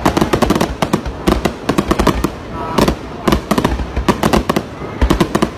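Aerial fireworks going off in a rapid, continuous salvo: many sharp bangs and crackles a second, with a few heavier bursts standing out about a second in and again near the middle.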